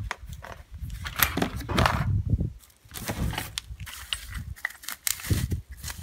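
Plastic bag rustling and crinkling as a small wrapped part is handled and unwrapped, with scattered clicks and light knocks of parts being moved.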